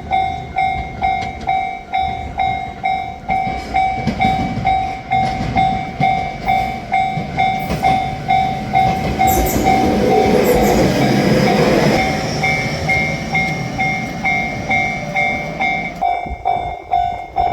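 Japanese level-crossing bell clanging steadily, about two strikes a second, as a JR Shikoku 7000 series electric train runs past. The train's rumble swells to its loudest a little past the middle, with two brief high squeals, then falls away suddenly near the end while the bell keeps ringing.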